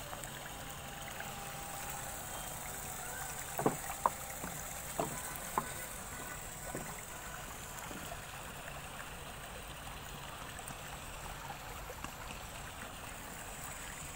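Steady, faint outdoor background hiss with no clear single source. A few short, sharp clicks come in a cluster about four to six seconds in.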